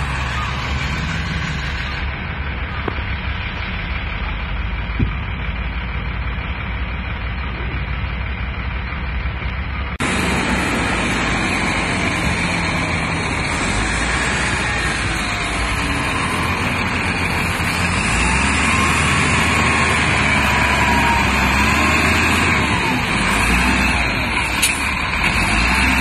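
Wheel loader's diesel engine running under load as it drives and scoops sand. The sound steps up louder about ten seconds in.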